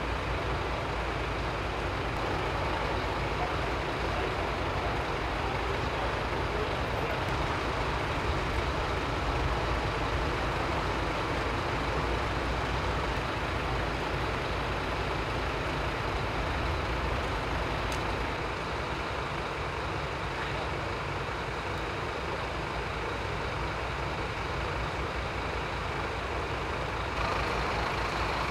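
Steady low rumble and hiss of idling emergency-vehicle diesel engines, a little louder near the end.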